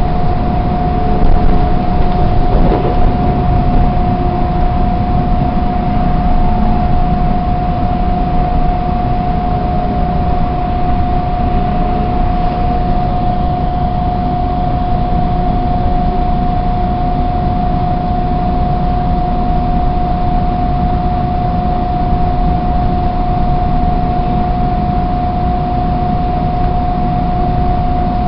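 TTC subway train running on surface track, heard from inside the car: a steady rumble of wheels on rail with a constant high whine over it, a little louder in the first few seconds.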